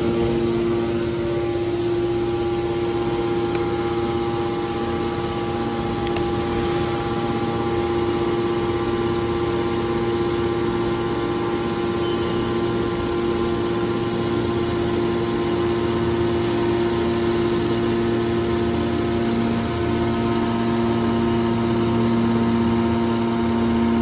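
Hydraulic power unit of a scrap car baler running: the electric motor and hydraulic pump give a steady, unchanging hum made of several constant tones.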